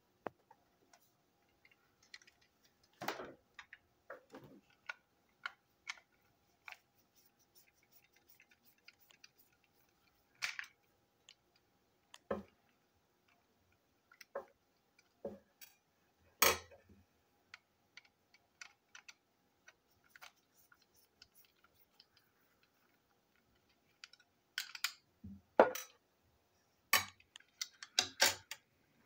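Scattered small clicks and taps of a plastic toy train engine being taken apart with screwdrivers: tools working its tiny screws and small screws set down on the table. A denser run of plastic clatter comes near the end as the body shell is worked off the chassis.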